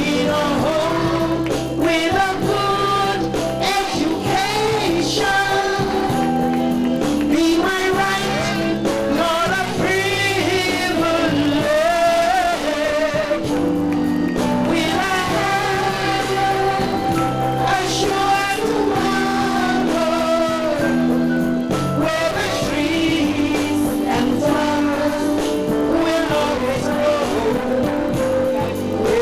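A woman singing a song into a microphone, with children's voices singing along, over amplified backing music with a repeating bass line.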